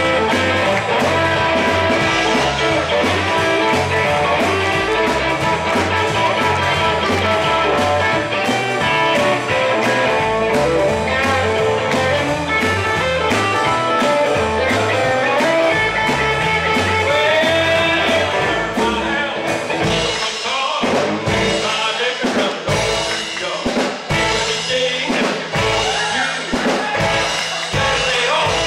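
Live rock and roll band playing a bluesy number on electric guitar, keyboard, bass and drum kit. About twenty seconds in, the steady bass line drops out and the band plays short, separated hits.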